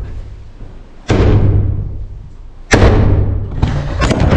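Hammer blows smashing out wooden wall framing: three hard strikes about a second and a half apart, each leaving a low, lingering ring-out that fades before the next.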